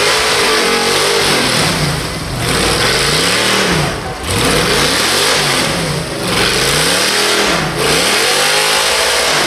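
Off-road race buggy's engine revving hard over and over, its pitch rising and falling about five times, over a loud rushing of tires spinning in snow as it struggles against a snowbank.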